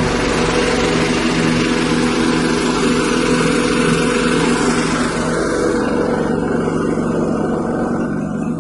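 A small 6.5 HP petrol engine running steadily, driving a rice husk grinding machine, with a loud rushing noise over it that dies away about six seconds in.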